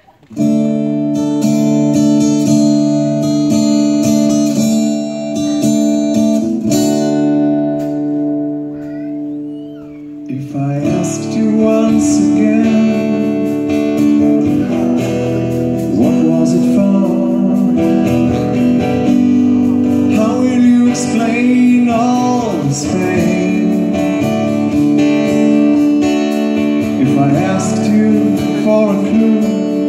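Live band playing an acoustic arrangement of a rock song. Guitar chords start suddenly, and about ten seconds in the fuller band and a lead voice singing come in.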